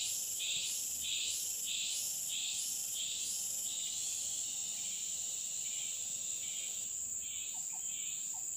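Insects (crickets or cicadas) calling in tropical forest: a steady high-pitched whine with pulsed chirps nearly twice a second that pause about 4 s in and resume about 7 s in.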